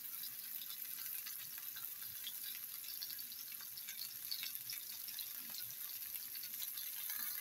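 Chicken pieces sizzling steadily in an oiled cast-iron grill pan, with faint scattered crackles.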